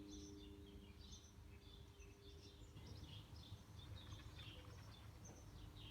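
Near silence: quiet room tone with faint, repeated bird chirps in the background.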